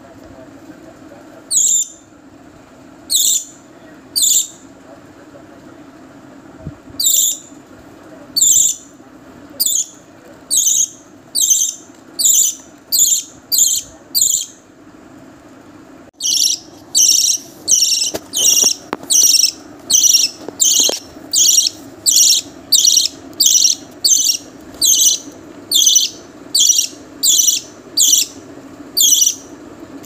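Budgerigar chick giving repeated short, shrill begging calls while being hand-fed from a syringe. The calls come a second or so apart at first, then quicken into a steady run of about one and a half a second from the middle on, over a low steady hum.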